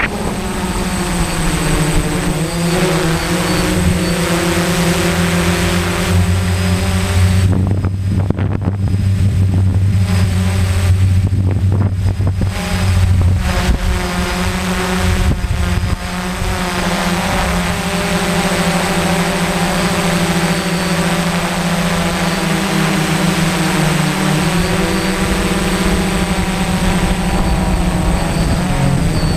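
Quadcopter's electric motors and propellers droning steadily, heard from the camera on board as it hovers. The pitch wavers and shifts slightly with the throttle, and a deeper hum joins in for several seconds mid-way.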